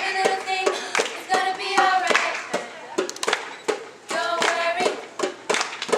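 Young voices singing short held notes over sharp, rapid hand claps and slaps.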